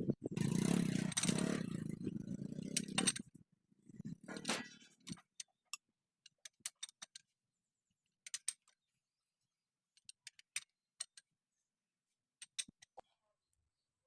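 Metal tools and engine parts clinking and tapping during tractor engine repair work: a few seconds of louder clattering noise at the start, then scattered sharp metallic clicks in small clusters.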